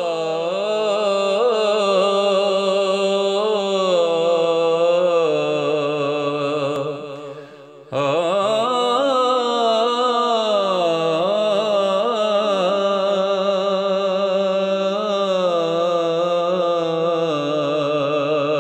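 A man's voice singing a wordless, drawn-out melismatic alaap, the opening of a Punjabi Sufi kalam, in two long phrases: the first fades out about seven seconds in, and the second begins abruptly at about eight seconds.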